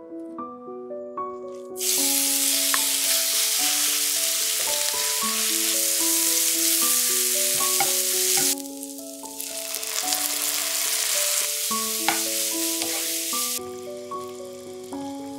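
Thinly sliced beef sizzling as it fries in a nonstick frying pan, stirred with a spatula, over soft melodic background music. The sizzle starts about two seconds in, dips briefly past the middle and drops to a quieter hiss near the end.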